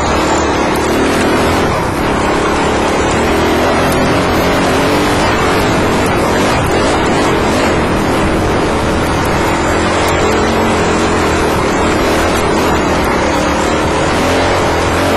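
Dirt bike engine running under way on a trail, heard close up from a helmet-mounted camera, its note rising and falling with the throttle.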